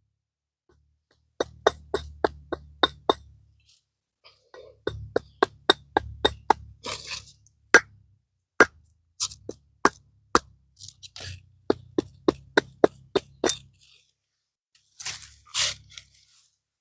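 Axe blade striking a piece of wood in a run of quick, short chops, about two to three a second, in several bursts with brief pauses. This is a test of an old axe's edge freshly sharpened on a cinderblock. A short scraping sound comes near the end.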